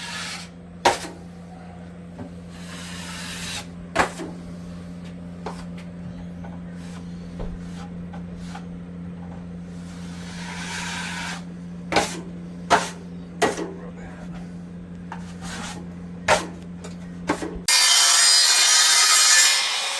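Hand-tool work: scraping and rubbing strokes with several sharp knocks and taps over a steady low hum. Near the end a loud, steady rushing noise starts suddenly.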